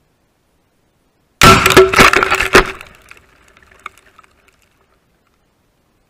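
Tannerite and gasoline packed in a television, set off by a 5.45x39 AR-15 rifle shot: a sudden, very loud explosion about a second and a half in, with several more sharp cracks over the next second. It dies away into faint scattered ticks of falling debris.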